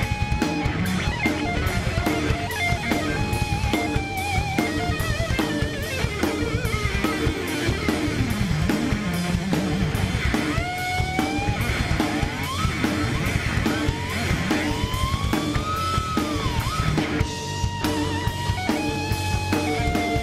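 Live heavy metal band playing an instrumental passage: a lead electric guitar plays sustained, bent and sliding high notes over a repeating rhythm-guitar riff and a pounding drum kit.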